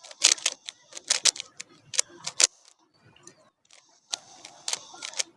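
Rubik's Cube layers being turned quickly by hand: bursts of rapid plastic clicking and clacking as the faces snap round, with a pause of about a second in the middle.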